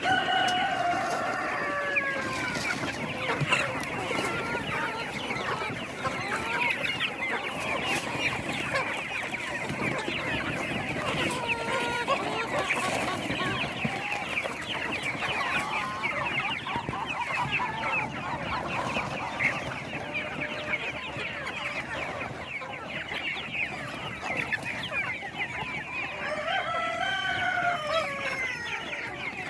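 A large flock of chickens clucking and chattering without a break, many birds at once. A rooster crows at the start and again near the end.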